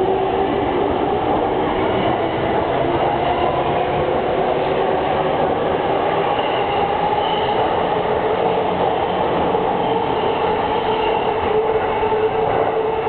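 JR East E231-series electric multiple unit pulling out and running on, with wheel-on-rail rumble and a steady whine from its traction motors that rises slowly in pitch as it gathers speed.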